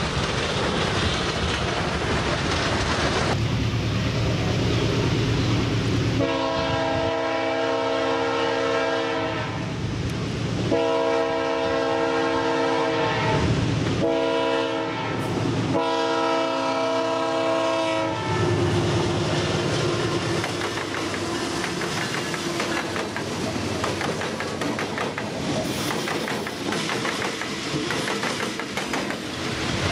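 Diesel freight locomotive's multi-tone air horn sounding four blasts, long, long, short, long: the level-crossing warning signal, as the train approaches. Before it, freight wagons rumble past; after it, the locomotive and its hopper wagons roll by with a rising clickety-clack of wheels on rail joints.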